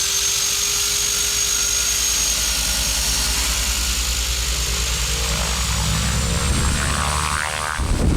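A small propeller plane's engine running steadily, with a fast low throb and a high whine that slowly rises in pitch.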